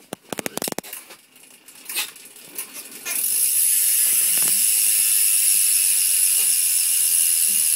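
Rear freewheel hub of a 2013 Mirraco Axium BMX bike ratcheting as the wheel spins: scattered clicks at first, then about three seconds in a fast spin turns the pawl clicks into a steady, loud, high-pitched buzz.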